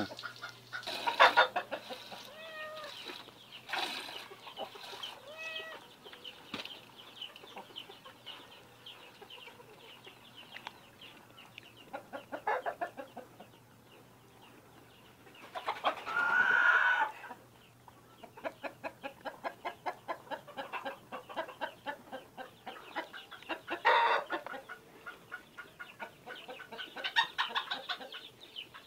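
Hand-milking a cow: milk squirting from the teat into a pail in a steady rhythm, about two squirts a second. A few short animal calls stand out over it, the loudest about halfway through.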